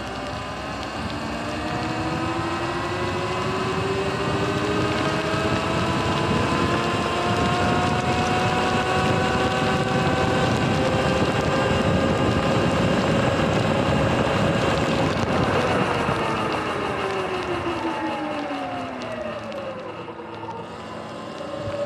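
Sur-Ron Light Bee electric dirt bike's motor and drive whining, the pitch rising as it speeds up for about fifteen seconds, falling as it slows, then rising again near the end. A steady rush of wind and tyre noise runs underneath.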